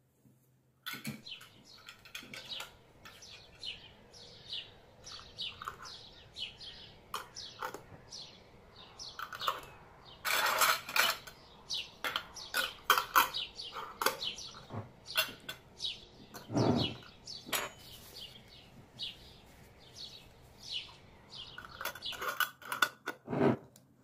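Metal twist-off lids being put on and screwed down onto glass pickle jars: a long run of small clicks, scrapes and clinks of metal on glass, busiest about halfway through, with one duller knock of a jar on the wooden table later on.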